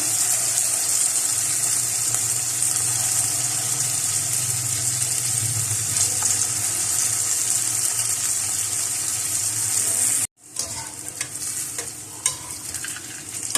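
Hot oil sizzling steadily as small mung dal pakoras deep-fry. A little after ten seconds in it cuts out abruptly for an instant, then carries on quieter.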